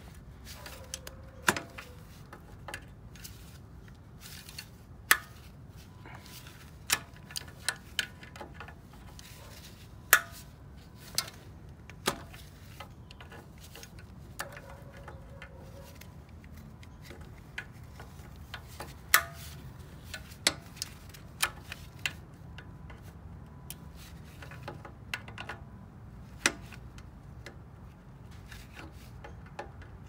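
Irregular sharp metallic clicks and clinks of vice grips on the oil drain plug of a Briggs & Stratton engine as the plug is worked loose, over a low steady rumble.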